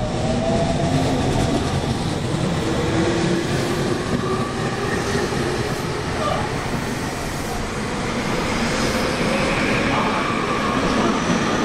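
Tobu 30000 series electric train running, its traction motors giving a whine that slowly rises in pitch as it gathers speed, over steady wheel and rail rumble.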